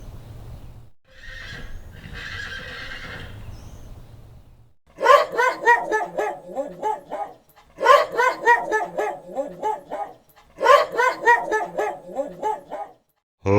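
A horse whinnying three times in a row, each whinny a quavering call of about two seconds, starting about five seconds in. Before the first whinny there is a steady noisy hiss.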